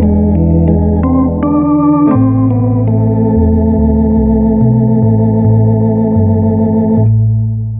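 Orla Ringway RS 600 electronic home organ playing sustained jazz chords over a stepping bass line. About seven seconds in the upper chords stop, leaving a low bass note and a softer chord that begin to fade.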